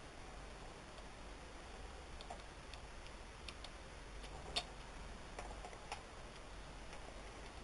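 Scattered light clicks and taps of small hard laptop parts being handled during disassembly, irregular rather than rhythmic, with one sharper click near the middle, over a steady faint hiss and low hum.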